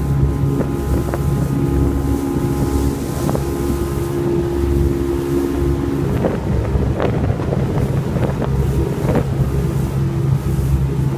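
Motorboat engine running steadily under way, with wind buffeting the microphone. A few sharp knocks come in the second half.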